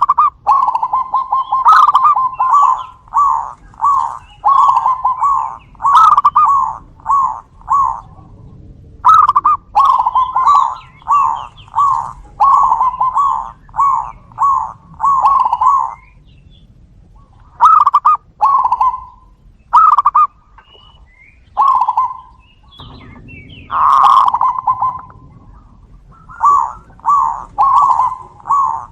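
Zebra doves (perkutut) cooing back and forth. Long rhythmic runs of short notes come about two a second, broken by a pause and a few single notes before another run starts near the end.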